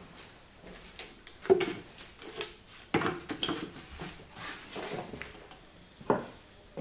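Gloved hands squeezing and folding a hollow clay face and setting it down on a wooden stand: irregular soft thuds and knocks with rustling between them. The loudest thud comes about a second and a half in, and others come about three and six seconds in.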